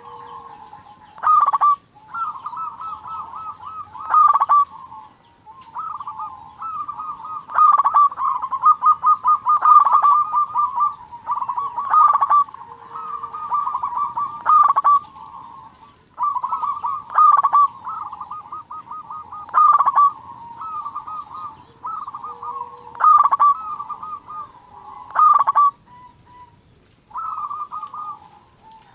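Zebra doves (perkutut) cooing over one another. Each phrase is a quick stuttering run of notes with a louder coo stroke, and the phrases repeat every couple of seconds, often overlapping.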